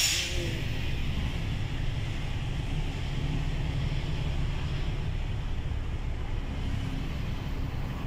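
A truck's engine and road noise heard from inside the cab while driving: a steady low rumble with a brief hiss right at the start.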